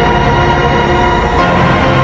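Background music with many notes held steadily at a constant loudness.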